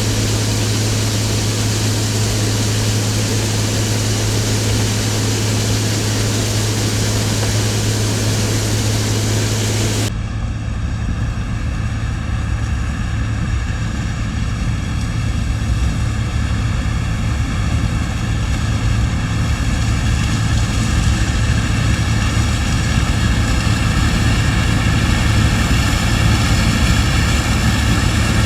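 New Holland TX68 combine harvester and its machinery running steadily while harvesting corn. About ten seconds in the sound changes abruptly to a steadier engine note with a clear hum of many even tones, growing slowly louder toward the end.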